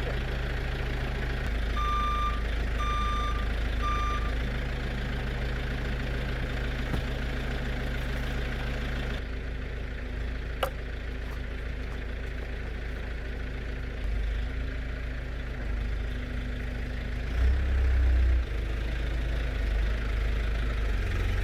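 A vehicle engine idles steadily while a reversing alarm beeps three times, about once a second, a few seconds in. The engine surges louder briefly near the end.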